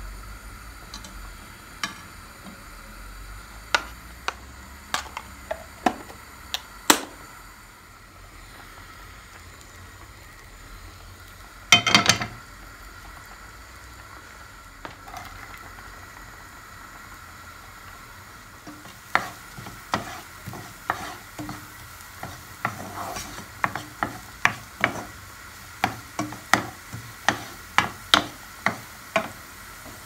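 Butter melting in a nonstick frying pan with a faint sizzle, a knife tapping the pan a few times; a little before halfway, diced onion goes in with a brief crackling burst. In the last third, a wooden spoon stirs the frying onion, knocking against the pan about twice a second.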